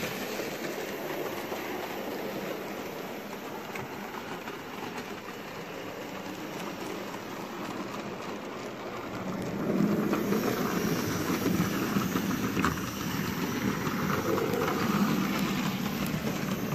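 Model railway locomotive hauling coaches along its track: a steady running rattle of the wheels on the rails with the hum of its small electric motor, getting louder about ten seconds in.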